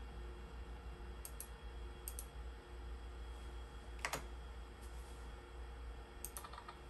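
Computer mouse button clicked about four times, each a short sharp click, most of them a quick double tick of press and release; the loudest comes about four seconds in. A faint steady hum runs underneath.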